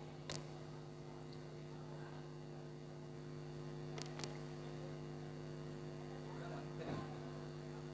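Steady electrical mains hum from a microphone and sound-system line, with a few faint clicks about a third of a second in and around four seconds in.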